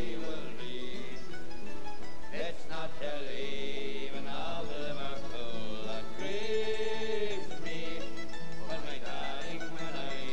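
Background music: an acoustic tune with plucked strings.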